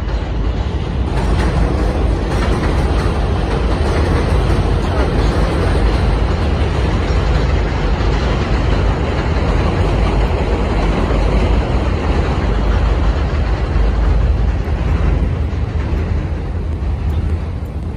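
Loud, steady rush of street traffic mixed with wind buffeting the microphone, heaviest in the deep low end, with no distinct single event.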